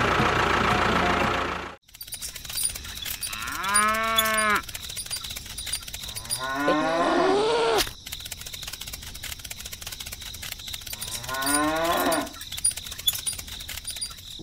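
Cow mooing three times, laid on as a sound effect: a long arching moo about four seconds in, a rising moo near the middle, and a shorter one near the end. Before them, a loud steady drone cuts off suddenly just under two seconds in.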